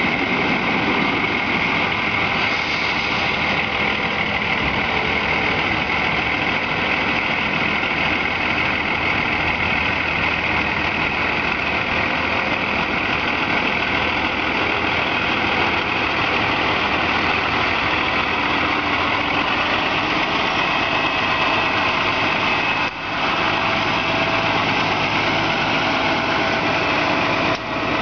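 Heavy-duty tow truck's diesel engine running steadily while it lifts and tows a retired trolley bus.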